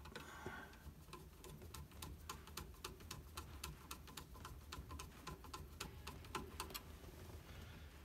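A quick, even run of small clicks, about five a second, as a screw is driven with a screwdriver to tighten the clamp of a turn-signal switch on the steering column; the clicks stop about a second before the end.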